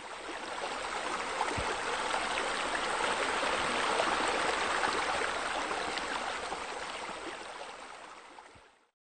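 Running water, a steady splashing flow like a water wall or fountain, fading in at the start and fading out near the end.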